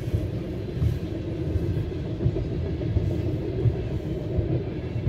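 Freight train of loaded tank cars rolling past: a steady low rumble broken by irregular wheel thumps, heard muffled from inside a car.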